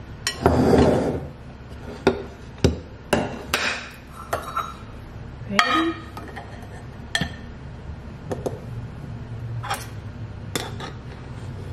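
Clinks and knocks of a flour canister's wooden lid and a metal measuring cup scooping flour, starting with a short scraping rustle, then a string of separate sharp knocks.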